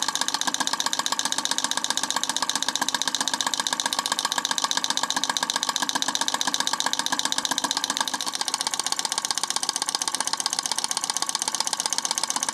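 A model rocking armature electric engine running steadily: its electromagnet coil pulls the rocking armature and beam on each stroke, giving a fast, even mechanical clatter like a small steam engine.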